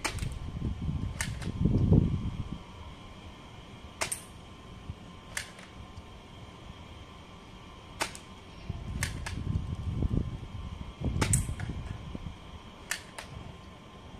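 Toy BB gun firing single shots, each a sharp snap, about a dozen at irregular intervals, some in quick pairs. A low rumble runs underneath at times.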